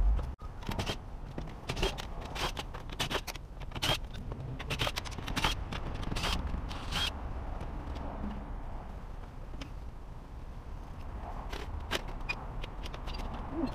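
Hand-tool work on a window frame: a run of short scrapes and clicks, dense in the first half, thinning out, then picking up again near the end.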